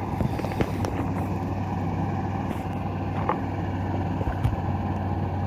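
Fishing boat's engine running steadily with a low, even hum, and a few light knocks over it.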